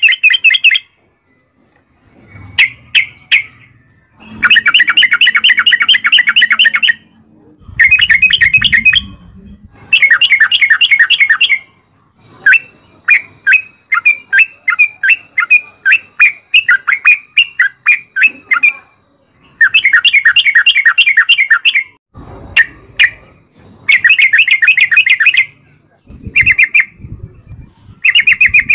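Yellow-vented bulbul (trucukan) singing its long rolling chatter: bursts of fast repeated notes a second or more long, broken by short pauses, with a looser run of separate notes in the middle.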